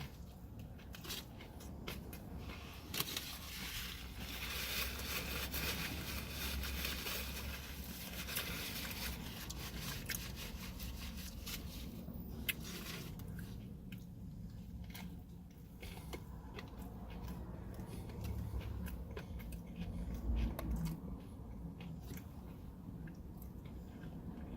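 Biting into and chewing a crispy spicy chicken sandwich with bacon, the breading and bacon crunching. The crunching is heaviest a few seconds in, then settles to quieter chewing.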